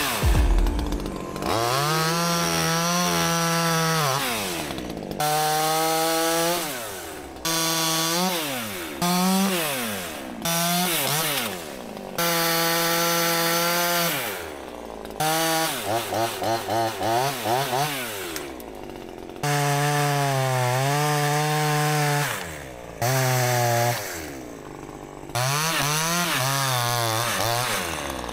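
Chainsaw running at high revs, its pitch rising and sagging as it is throttled and loaded, in bursts of one to three seconds that start and stop abruptly; a fast wavering in pitch partway through.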